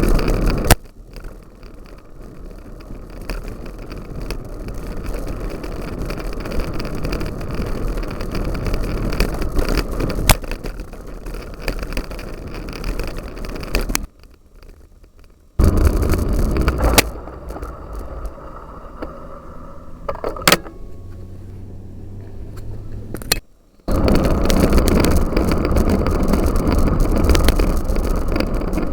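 Wind on the microphone and rattling from a bicycle being ridden off-road in a cyclocross race. The sound cuts out abruptly twice and comes back.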